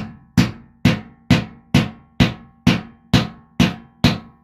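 Hammer striking a steel tub drain extractor set in a bathtub drain, about two evenly spaced sharp metallic knocks a second, each with a short ringing tail. The strikes drive the extractor's teeth into the drain flange so it can bite before being turned out.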